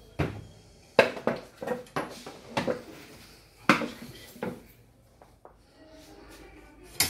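Metal rods and clamps of a Thompson surgical retractor table-mount frame clinking and knocking together as they are handled and fitted, about eight sharp metallic clicks over the first five seconds and one more near the end.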